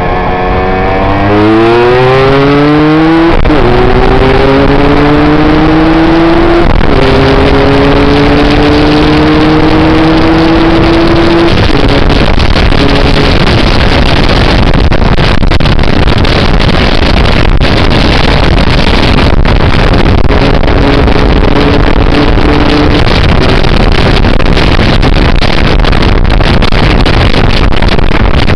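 Aprilia RS125 two-stroke single-cylinder engine accelerating hard through the gears, its pitch climbing and dropping back at shifts about 3 and 7 seconds in. After that, loud wind rush over the helmet-mounted microphone at speed drowns the engine almost entirely.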